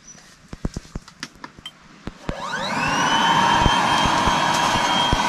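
Electric air pump inflating an air mattress: a few clicks and rustles of handling, then about two seconds in the pump switches on, spins up in a quick rising whine and settles into a steady whirring hum with a rush of air.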